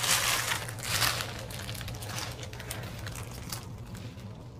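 Small clear plastic bags of diamond-painting drills crinkling and rustling as they are handled, loudest in the first second or so and fainter after, over a steady low hum.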